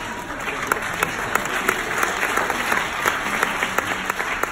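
Audience applauding: a dense spread of hand clapping with a few sharp single claps standing out, easing off near the end.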